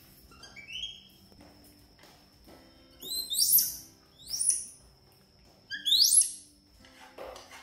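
Young macaque giving high-pitched calls, four quick upward-sweeping squeals, the second and fourth the loudest, as spaghetti is served to it. Faint background music runs underneath.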